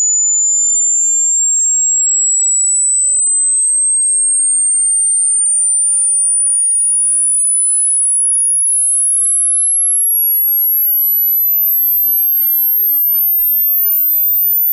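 Hearing-test sine tone: a single pure, very high-pitched tone rising slowly and steadily, getting higher all the way through.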